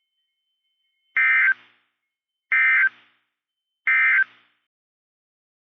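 NOAA Weather Radio SAME end-of-message data bursts: three short, identical warbling data tones about a second and a half apart, signalling the end of the severe thunderstorm warning message.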